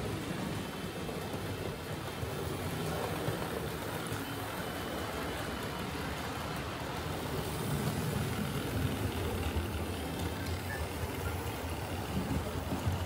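Hornby 00-gauge model steam locomotive with a tender-mounted motor, running along the track hauling coaches: a steady rumble of motor and wheels on the rails that grows a little louder after the middle.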